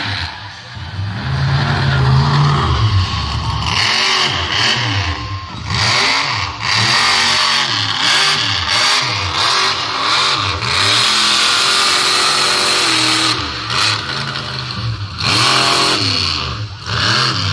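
Monster truck engine revving hard, its pitch climbing and dropping again and again as the truck is driven around the dirt track and up onto a pile of crushed cars.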